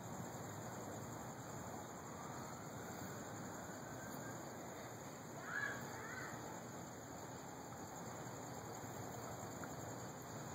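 Steady hiss with a brief two-part call about halfway through, from an animal such as a bird.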